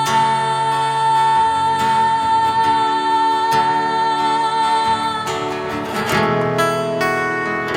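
Live acoustic guitar accompaniment under one long held sung note, the end of the song. The note stops about five seconds in, and the guitar strums and plucks the closing chords.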